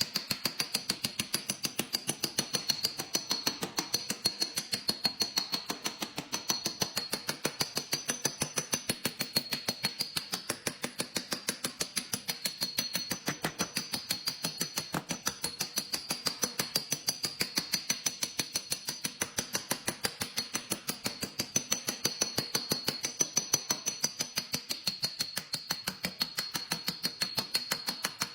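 Rapid, even tapping, several light taps a second, as in tapping down a dent with a paintless dent repair hammer and knockdown tool, over a steady high-pitched tone.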